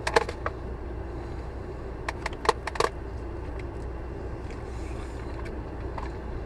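Sharp light clicks and taps of a plastic fork and a plastic cup being handled while eating, a quick cluster right at the start and several more about two seconds in, over a steady low hum inside the car.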